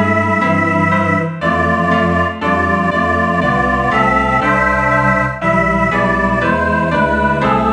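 Synthesized score playback of a four-part choral arrangement, voiced as sustained organ-like chords. There are short breaks between phrases about one and a half, two and a half and five and a half seconds in.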